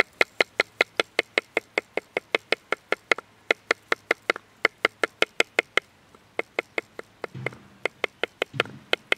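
A wooden stick tapping lightly and rapidly on a green branch resting on a pine stump, about six knocks a second, loosening the bark from the wood so it can be slipped off whole. The tapping pauses briefly about six seconds in, then resumes.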